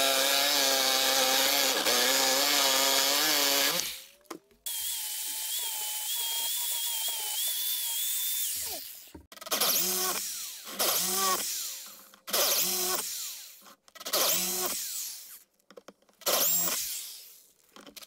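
Porter-Cable corded jigsaw cutting aluminium sheet. It runs steadily for about four seconds, then more quietly for about four more, then in five short bursts of about a second each, the motor spinning up and down with each trigger pull.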